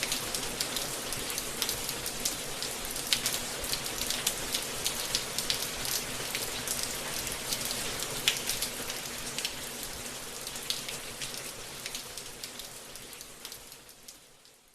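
Steady rain falling, with many individual drops ticking sharply. It fades out gradually over the last few seconds.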